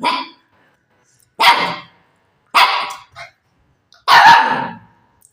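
A puppy barking: four sharp barks about a second apart, each fading quickly, with a smaller yap after the third.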